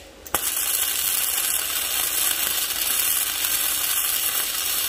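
Arc of a Proteck 250 MIG welder running gasless flux-core wire, crackling and hissing steadily. The arc is out at the very start and strikes again with a sharp click about a third of a second in.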